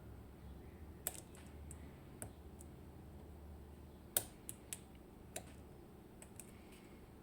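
Irregular light clicks of a hook pick working the pin stacks of an IKON SK6 lock cylinder held under tension, about a dozen in all, the sharpest a little after four seconds in.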